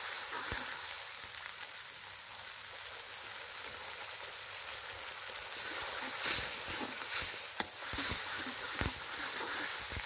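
Blended chili paste sizzling as it fries in oil in a metal wok. A spoon stirs it, with several short scrapes and knocks against the pan in the second half.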